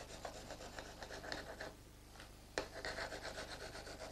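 Small plastic ruler scraping across fine sifted peat in a seed tray, a run of faint rubbing strokes levelling the surface without packing it. The strokes pause briefly near the middle, and there is one short click about two and a half seconds in.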